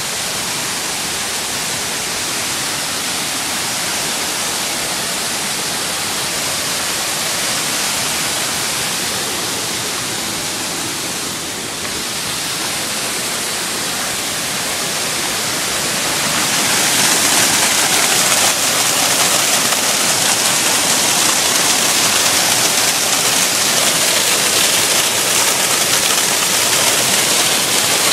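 Waterfall rushing steadily; it grows louder a little past the halfway point.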